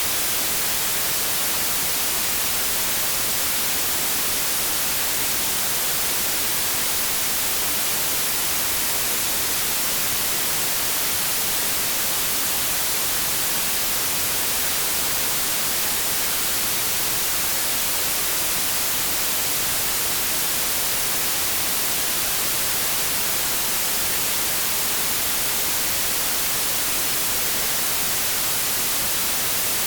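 Continuous white noise: a steady, even hiss, brightest in the treble, that does not change.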